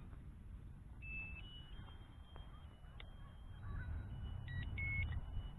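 Eachine EX4 GPS drone powering on: a run of high electronic beeps stepping between several pitches, starting about a second in, with a few short chirps near the end.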